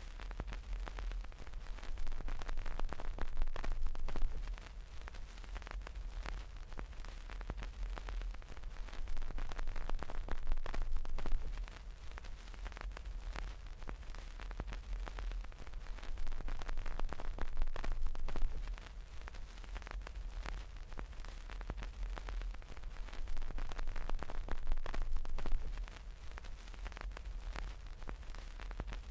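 Fingers rubbing and scratching the faux-fur cover of a homemade binaural microphone right at the capsule: a dense crackling rustle with a low handling rumble, swelling into louder passes about every seven seconds.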